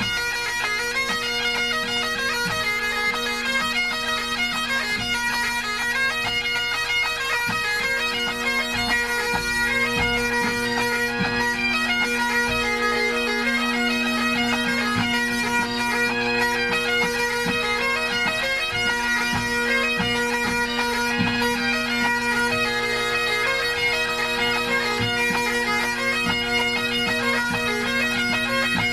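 A pipe band's Great Highland bagpipes tuning up: steady drones with chanters playing tune phrases over them.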